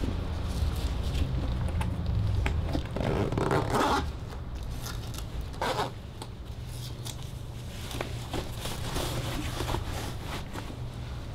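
Tan suede boots being put on and laced: rasping, zip-like strokes of laces and suede being pulled, the longest about three to four seconds in and another near six seconds, over a steady low hum.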